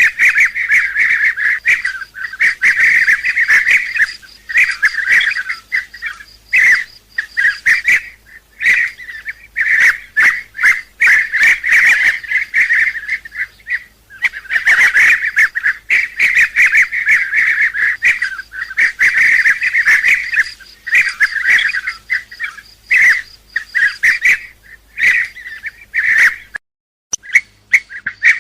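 Bee-eaters calling, many short rolling calls overlapping one another in close succession, with a brief silent break near the end.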